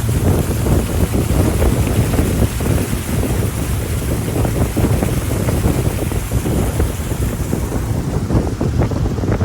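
Wind buffeting the microphone on a moving pontoon boat, over the steady low hum of its motor and water rushing along the hull.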